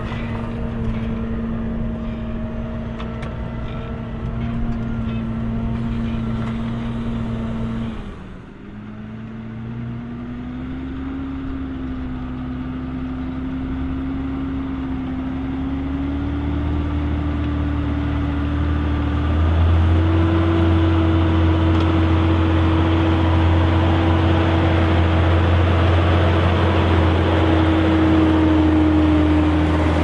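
John Deere 6190R tractor's six-cylinder diesel engine running while ploughing. The sound breaks off briefly about eight seconds in, then the engine note climbs gradually and settles louder and steady.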